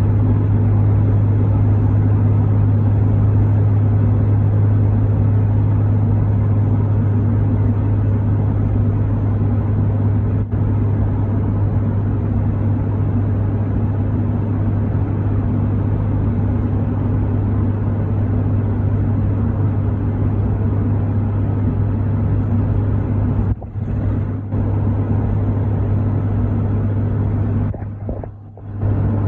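2003 Ram 3500 pickup running with a steady low drone, and a faint thin high-pitched squeal over it: the electronic or metallic squealing noise being chased. The sound drops out briefly a few times near the end.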